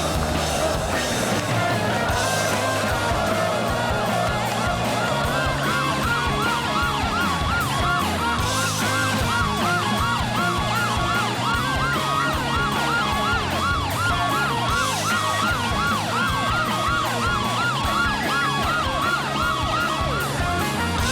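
Background action music with a steady beat, with a siren wailing over it in quick, repeated rising and falling cycles from about five seconds in.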